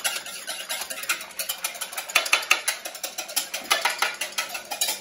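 Wire hand whisk beating wet cake ingredients (egg yolks, oil, water and grapefruit juice) in a mixing bowl, a quick, steady run of clicking and scraping strokes against the bowl as the liquids are mixed together.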